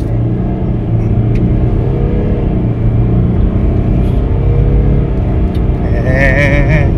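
Toyota Land Cruiser 300's V6 twin-turbo engine pulling hard at full throttle through its 10-speed automatic, heard from inside the cabin. The engine note climbs and drops back a few times as the gearbox upshifts.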